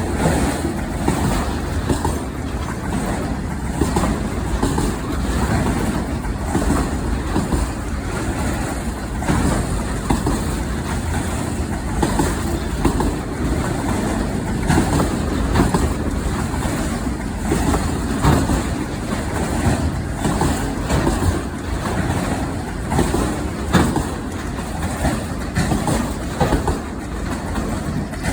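Norfolk Southern freight train rolling past: a steady rumble of wheels on rail, with irregular clicks from the wheels over the track.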